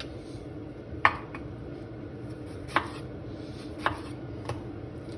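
Kitchen knife cutting a tomato on a wooden chopping board: about five sharp taps of the blade striking the board, at irregular intervals. A steady low background noise runs underneath.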